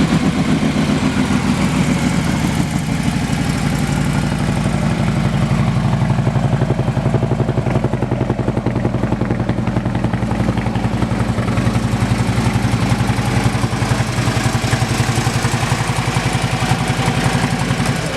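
Harley-Davidson Street Glide Special's 103-cubic-inch V-twin idling steadily, with an even, loping pulse.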